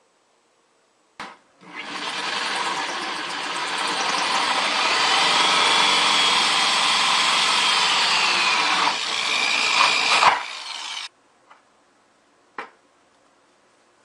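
Corded power drill with a hole saw cutting through the wall of a plastic five-gallon bucket, running for about nine seconds with a steady motor whine that dips in pitch about eight seconds in, then stopping suddenly. A few light clicks follow.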